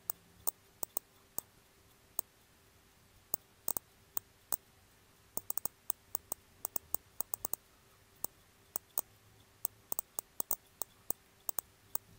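GQ GMC-320 Plus Geiger counter clicking at random, uneven intervals, some clicks in quick pairs or small clusters, each click one detected count. The radiation comes from uranium-doped glass marbles in a plastic bag, reading about 50 counts per minute against a background of about 19, mostly gamma and beta. The recording is fast-forwarded, so the clicks come several times a second.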